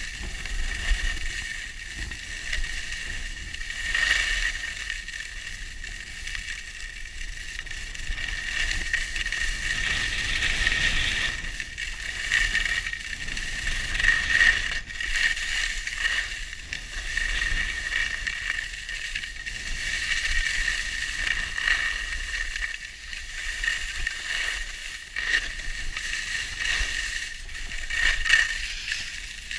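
Skis scraping and carving over groomed snow on a downhill run, rising and falling in loudness, with wind buffeting the microphone as a low rumble.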